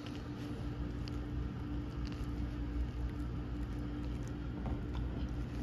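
A steady low hum with a constant mid-low tone, and a few faint clicks over it.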